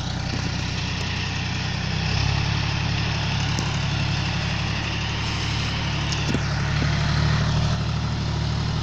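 John Deere 5055 tractor's diesel engine running steadily under load, its note stepping up and getting louder about two seconds in.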